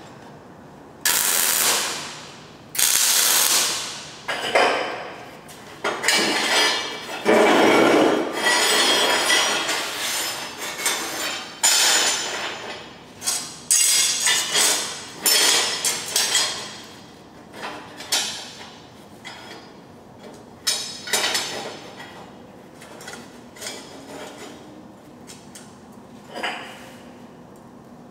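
Steel bracing pieces being knocked, set down and shifted on a steel welding table, with hammer taps: a string of sharp metallic clanks at irregular intervals, several ringing on for a second or two.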